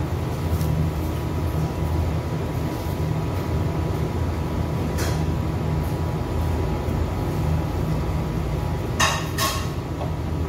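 Steady low machinery hum, with a sharp clink about five seconds in and two more close together near the end.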